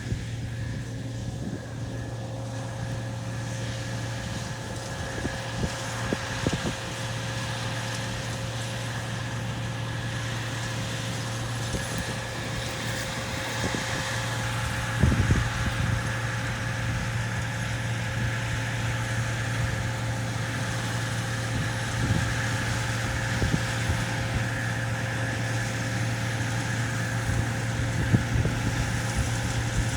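Heavy farm machinery engine running steadily with a constant low drone, with a few brief knocks, the loudest about halfway through.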